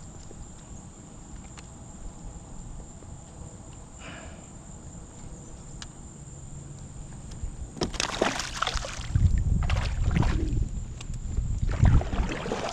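Water splashing and sloshing as a catfish on a jug line is brought in, loud and irregular from about eight seconds in after a quiet stretch with a few faint clicks.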